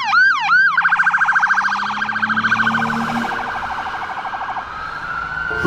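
Electronic police siren: three quick swoops, then a fast warble that fades out over the last couple of seconds.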